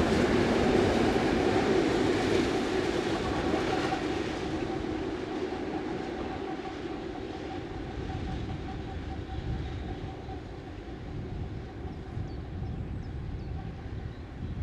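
Heavy Ludmilla-type diesel locomotives hauling a freight train, their engines running under load. The sound is loud at first as they pass close by, then fades after about four seconds into a steadier, quieter drone.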